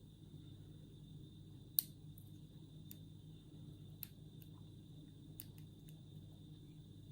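Lock pick and tension wrench working the pins of an older five-pin ISEO thumb-turn Euro cylinder lock: a few faint, sharp metallic clicks, the loudest about two seconds in. A steady low hum runs underneath.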